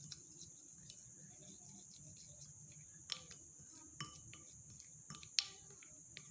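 A spoon stirring thick scrub paste in a glass bowl: soft scraping with a few sharp clinks against the glass, the loudest about five seconds in, over a steady faint high hiss.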